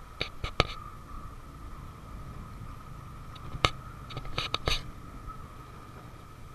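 Close handling noise: a quick cluster of sharp clicks just after the start and another cluster a little past the middle, over a faint steady high whine and low rumble.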